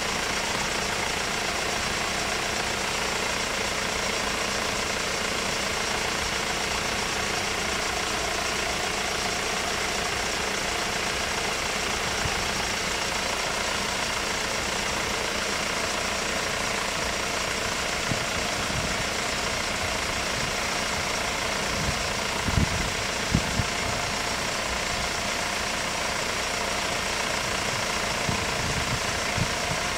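Car engines idling under a steady hiss, with a few brief low thumps about three-quarters of the way through.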